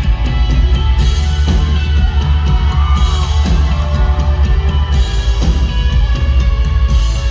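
Loud live rock band close to the stage: heavy bass and drums with cymbal hits, and a voice rising and falling in pitch about two to three seconds in.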